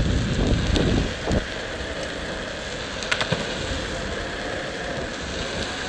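Skateboard rolling over pavement on soft 3D-printed TPU wheels: a steady rolling hiss and rumble. A few light clicks come about a second in and again around three seconds, as the wheels pass over small bumps.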